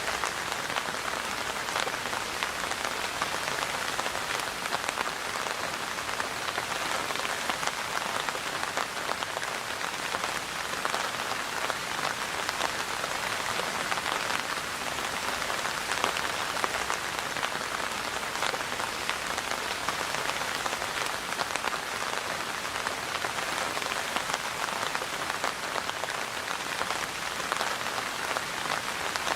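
Steady rain falling, a dense even patter of many small drops striking a surface.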